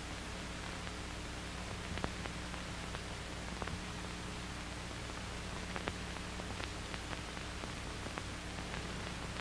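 Steady hiss and low hum of an old film soundtrack, with a few faint scattered clicks.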